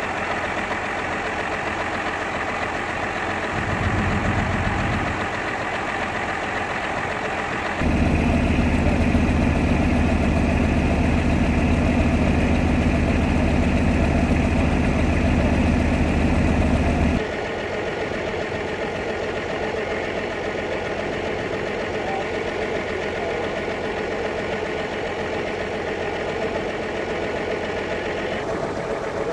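Vintage farm tractor engines idling, heard in separate takes that change abruptly about 8 and 17 seconds in and again near the end. The middle take is louder and heavier in the low end.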